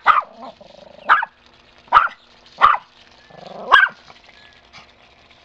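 Small dog barking in five sharp barks about a second apart, bark-warnings at the rival dog in a tug-of-war over a garden hose.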